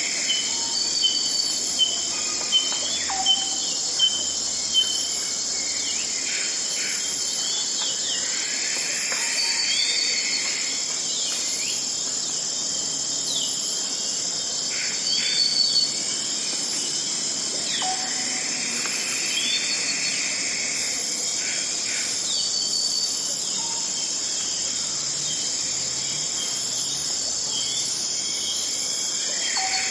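Rainforest dawn chorus: a dense, steady high-pitched drone of insects, with birds calling over it in short notes and quick slides. In the first five seconds one bird repeats a short sharp note about seven times, a little under a second apart.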